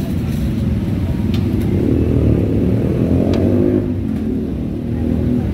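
Street traffic: a motor vehicle's engine passes close by, its pitch rising and then falling over a few seconds, over a steady low traffic rumble. A few sharp clicks sound in between.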